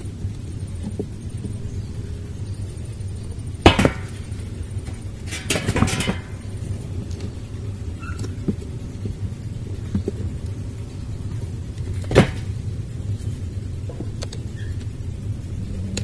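Wooden beehive frames being pried loose in their box with a hive tool: a few sharp cracks and knocks of wood, one about four seconds in, a quick cluster around six seconds and another about twelve seconds in, over a low steady rumble.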